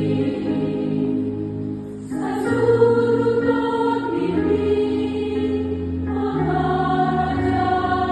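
Women's choir singing a hymn in held, sustained notes, with a short break between phrases about two seconds in.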